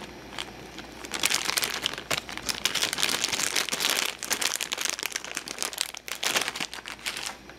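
Clear plastic zip-lock bag crinkling as hands handle it and open it. A dense run of crackles starts about a second in and dies away near the end.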